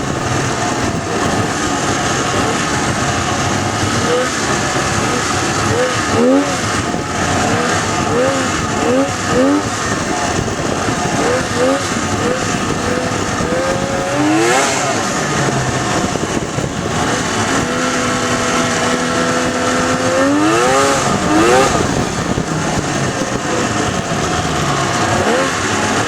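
1998 Polaris XLT 600 snowmobile's three-cylinder two-stroke engine running and being revved again and again, its pitch rising and falling in quick blips, held steady briefly past the middle. It is running poorly.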